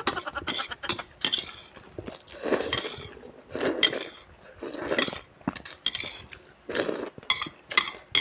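Spicy instant noodles being slurped in several long sucks, with wet chewing and a metal fork clicking and scraping on the plate in between.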